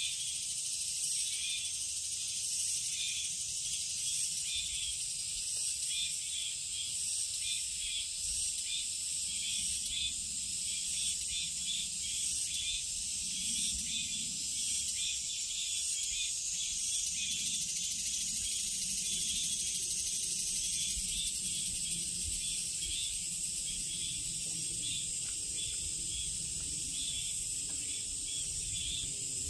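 Summer forest insect chorus: a steady, high-pitched shrilling with a regular pulse about twice a second.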